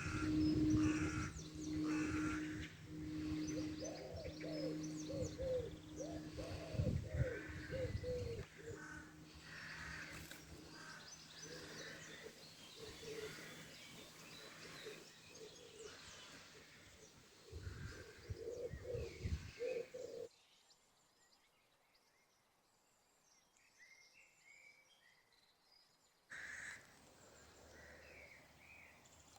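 A church bell's hum pulsing and dying away over the first several seconds after it was struck, while small birds chirp and sing. The sound drops almost to silence about twenty seconds in, with faint bird calls returning near the end.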